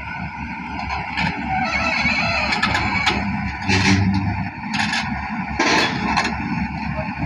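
A motor vehicle running steadily, with three short bursts of rushing noise a little after the middle.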